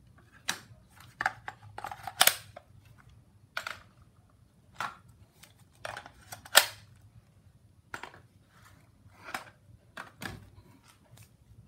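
Hard plastic clicks and knocks of a Bosch 18V and a Makita 14.4V cordless drill battery pack being handled and slid onto their drills until they latch. The clicks are irregular, with the two sharpest about two seconds in and past the middle.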